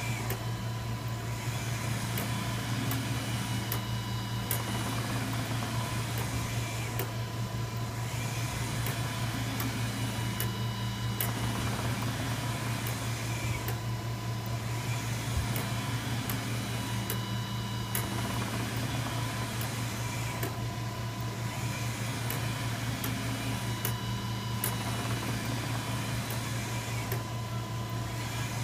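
Océ Arizona 480 GT UV flatbed printer running while printing: a steady low hum with a faint high tone, the sound shifting about every three and a half seconds as the print carriage shuttles back and forth across the bed, with light clicks.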